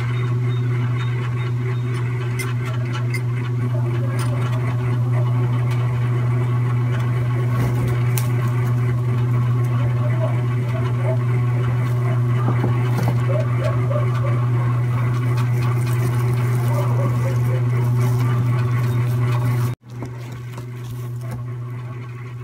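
A steady low hum, like a small motor or electrical hum, that drops abruptly to a lower level near the end.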